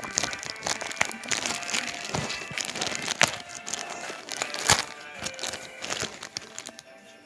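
Packaging crinkling and crackling as a comic book order is handled and unpacked, with frequent sharp crackles. The loudest crackle comes about two-thirds of the way through, and the sound dies down near the end.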